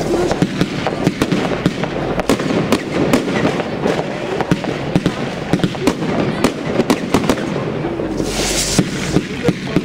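Aerial fireworks bursting: many sharp bangs and pops in quick, irregular succession, with a short hiss about eight seconds in.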